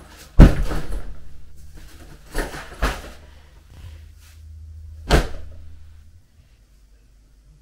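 A loud sharp knock about half a second in, two smaller knocks around two and a half seconds in, and another loud knock a little after five seconds, with a low hum in between.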